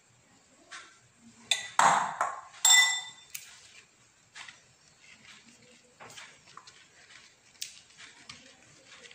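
A metal spoon clinks and knocks against a glass bowl a few times, the last strike ringing out with a clear ping. Afterwards come faint rustles and light taps of a banana leaf being folded and pressed flat by hand.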